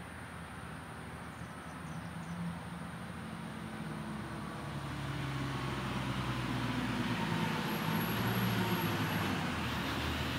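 A motor vehicle running, growing steadily louder.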